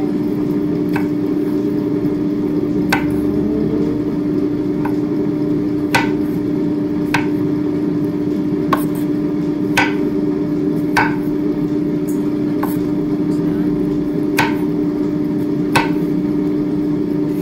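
Kitchen knife slicing button mushrooms on a wooden cutting board: sharp single knocks of the blade on the board, about one every second or so. A steady loud hum runs under them the whole time.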